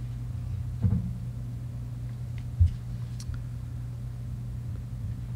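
Steady low room hum with faint soft rustles of Bible pages being turned, and two dull thumps, one about a second in and a louder one just past halfway, from the handheld microphone being knocked against the book.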